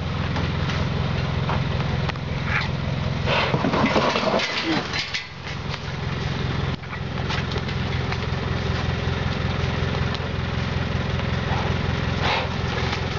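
Truck engine idling steadily, a low even hum with a short dip about two-thirds of the way through.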